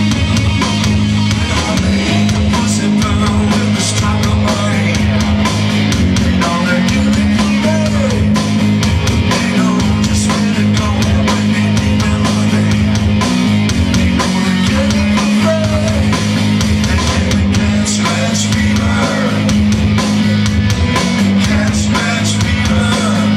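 Live rock band playing loud, with electric guitar, bass and a drum kit keeping a steady driving beat.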